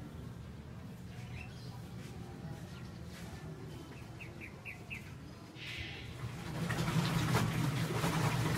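Birds chirping in short high notes, a quick run of four about four seconds in. From about six seconds a louder rustling, knocking noise takes over.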